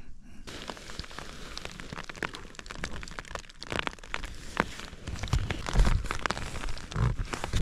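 Rain pattering on the bivy tent's fabric: scattered light ticks over a steady hiss. From about five seconds in come a few soft thumps and rustling as the tent's door fabric is handled.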